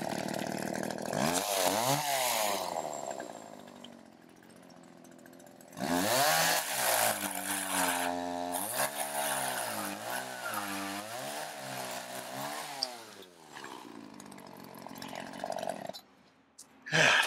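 Homelite two-stroke gas chainsaw cutting through a branch in two bursts, the second longer. Its pitch repeatedly sags and climbs back as the chain bites into the wood. Between the cuts and after them the saw drops back to a quiet idle.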